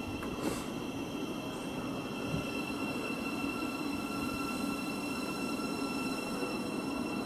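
Thameslink Class 700 Desiro City electric multiple unit moving slowly through the station: a steady rail rumble with a high, steady whine held over it.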